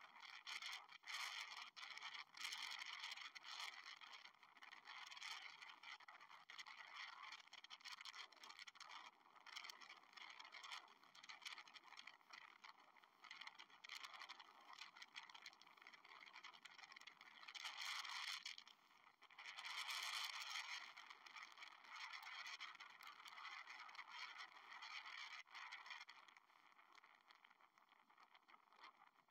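Golf-cart taxi riding along: a faint rushing, rattling noise with scattered clicks, louder for a few seconds past the middle.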